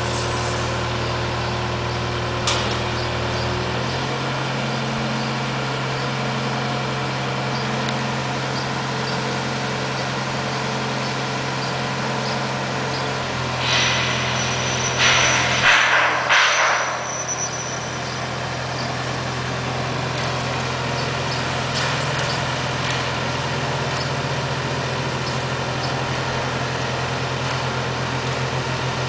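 Mobile crane's diesel engine running steadily while hoisting a steel tower, its speed rising slightly about four seconds in and dropping back about halfway through. A few loud hissing bursts come near the middle.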